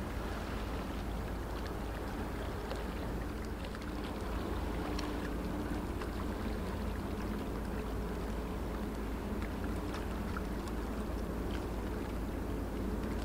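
Diesel engine of a passing inland cargo ship running steadily: a low drone with faint engine tones, a little louder from about four seconds in.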